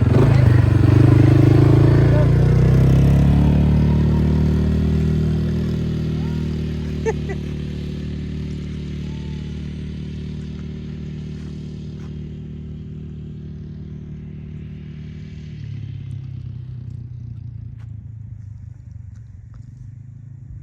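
A motor vehicle's engine running, rising slightly in pitch at first and then steadily fading as it moves away, with one short click near the middle.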